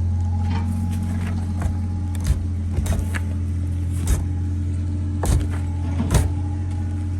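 A steady low mechanical hum, with sharp knocks or clacks at irregular intervals, about six of them.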